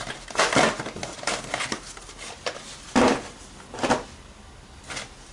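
Alarm kit parts and their boxes being picked up and set down on a table: a string of short rustles and knocks, the loudest about three seconds in.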